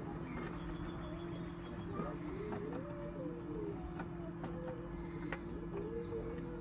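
Coturnix quail chicks calling, with short chirps and rising-and-falling calls over a steady low hum. A few light clicks.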